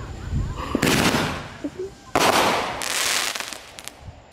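Consumer fireworks going off: a sudden burst of hissing and crackling about a second in, then another just after two seconds in that slowly fades.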